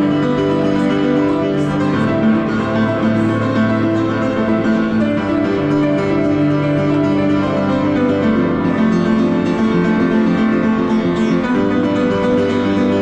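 Upright acoustic piano being played, a steady flowing run of held notes and chords.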